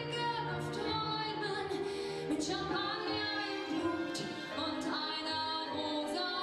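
A woman singing live into a microphone over musical accompaniment, her voice moving between sustained, held notes.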